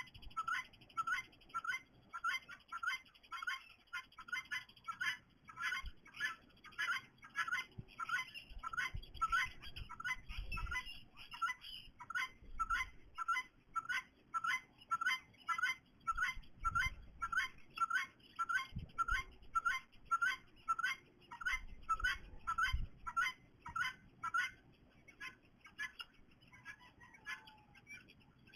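A bird calling over and over in a steady series, about two short calls a second, breaking off near the end, with a few low rumbles underneath.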